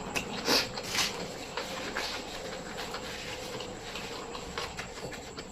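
Close-miked chewing and mouth sounds while eating: a few louder crunchy, wet smacks in the first second, then softer small clicks.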